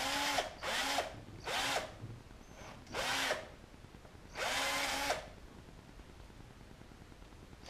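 Cordless drill with a 3.2 mm bit, run in five short trigger bursts that each spin up quickly, opening up the front rivet hole in a wing rib. The last burst is the longest, and the drill stops about five seconds in.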